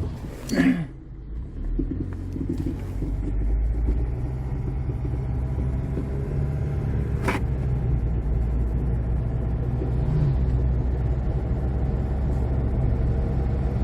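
2007 Jeep Compass on a road test, its engine and road rumble building over the first few seconds as it picks up speed, then running steadily. This follows front steering knuckle replacement meant to cure a humming noise, and no hum stands out. A short sound comes just after the start and a click about seven seconds in.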